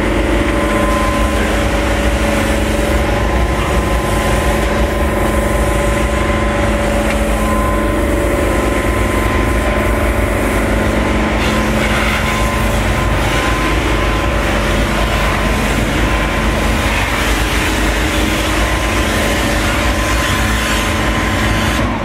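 Steady mechanical hum of running machinery, with several steady tones over a low rumble, unchanging throughout.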